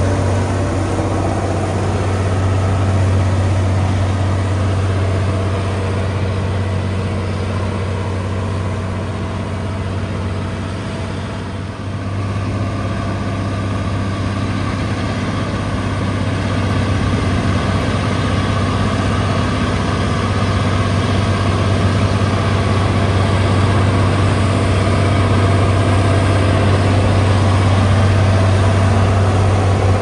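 Heavy diesel engine of road-building machinery running steadily with a deep hum. It dips briefly about twelve seconds in, then picks up and grows gradually louder.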